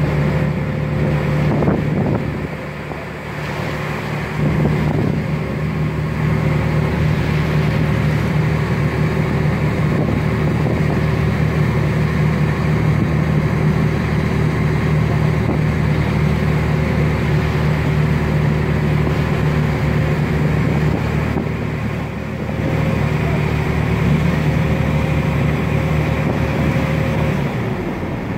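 A boat's engine running steadily with a low hum, with wind on the microphone.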